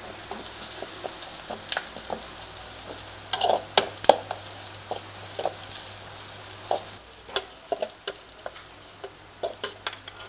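Spice paste of onion, garlic, pandan and chili flakes frying in oil in a metal saucepan, with a steady sizzle. A metal spoon stirs it, clinking and scraping against the pan many times, loudest about three and a half to four seconds in.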